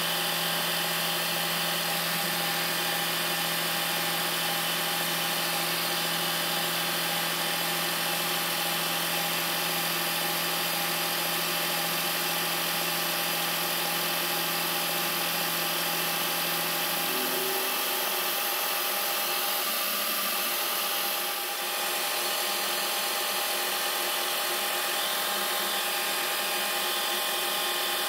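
Cincinnati milling machine running a 3-flute end mill through a roughing cut across the top face of a metal engine cylinder: a steady machining whine of spindle and cutter. About two-thirds of the way through, a low hum drops out while the cutting carries on.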